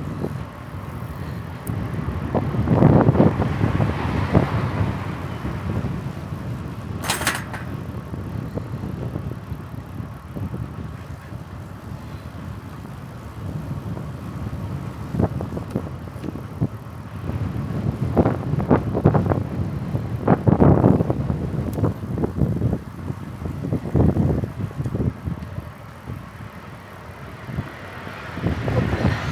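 Riding noise from a bicycle: wind buffeting the microphone over tyre and path noise, swelling and easing in gusts. A single brief sharp click about seven seconds in.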